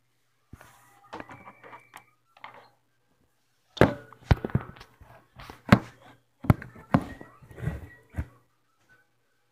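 Phone handling noise as the phone is moved about in the hand: a run of knocks, thumps and rubbing, sparse at first and dense from about four seconds in, over a faint low hum.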